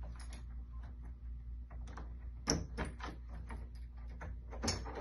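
Irregular metallic clicks and knocks of door lock hardware being handled, over a steady low hum. The loudest knocks come about two and a half seconds in and again near the end.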